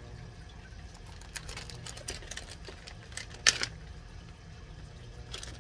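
Plastic bait package being handled and opened: a scatter of small crinkles and crackles, with one sharper snap about three and a half seconds in.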